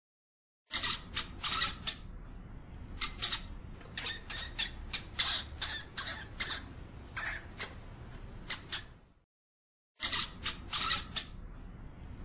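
European hamster giving short, shrill squeaks and squawks, singly and in quick runs. The calls break off twice for about a second.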